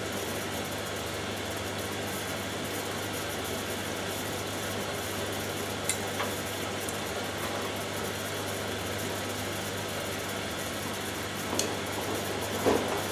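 Two front-loading washing machines running mid-cycle, the Hoover Dynamic Next DXA610IW3 in its rinse: a steady motor hum with a faint tick about six seconds in and again near the end, and a louder swish of water and drum just before the end.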